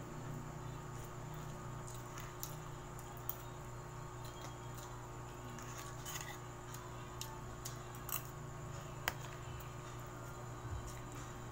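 Eating sounds close to a clip-on microphone: soft chewing and a few light clicks of a fork on a plate, over a steady electrical hum.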